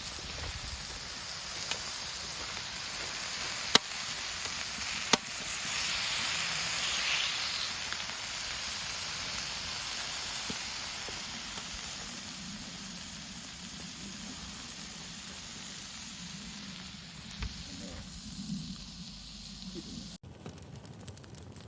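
Food sizzling on a barbecue grill over an open fire, a steady hiss with a couple of sharp pops from the fire. Near the end it cuts abruptly to a quieter crackling fire.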